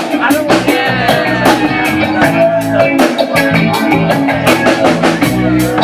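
Live band playing: electric guitar and electric bass over a drum kit keeping a steady beat.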